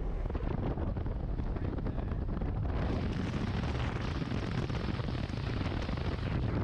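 A vehicle driving over a corrugated dirt road: a steady low rumble from the tyres and body over the corrugations, turning hissier about three seconds in.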